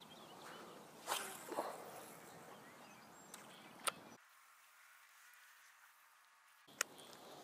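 Faint outdoor quiet with a few soft, short clicks and rustles, about a second in, again near four seconds in and once near the end.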